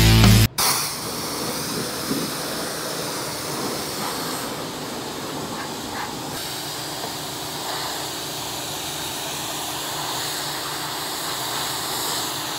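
Pressure washer spraying water in a steady hiss, the wand blasting mud off a utility vehicle. Background music cuts off about half a second in.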